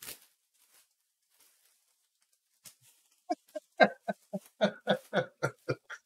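A person laughing: a run of quick, evenly spaced 'ha' bursts starting about three seconds in, after a brief rustle at the start.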